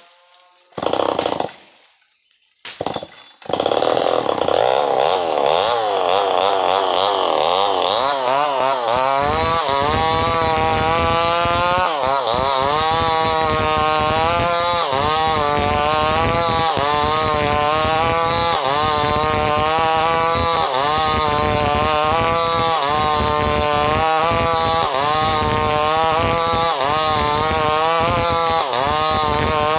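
Chainsaw engine: a few short bursts, then from about three seconds in it runs hard and steadily. Its pitch rises and falls about once a second as the bar is worked back and forth, ripping a log lengthwise into planks.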